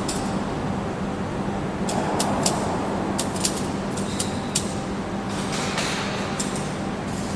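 Industrial machinery running with a steady hum, with scattered sharp metallic clicks and clinks from about two seconds in.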